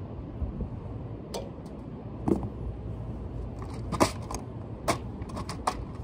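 Sharp metallic clicks and clinks of tools and hardware being handled inside a rooftop HVAC unit, about half a dozen at irregular intervals, the loudest about two and four seconds in, over a low wind rumble on the microphone.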